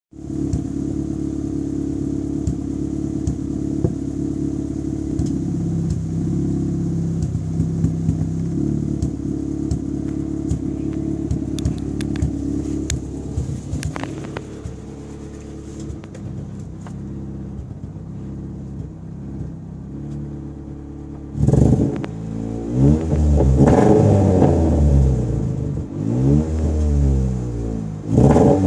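Mk5 Ford Fiesta Zetec S petrol engine idling steadily for about twenty seconds, then revved up and let fall back several times. The owner reports that it misfires under anything more than very light throttle, despite new leads, coil and plugs.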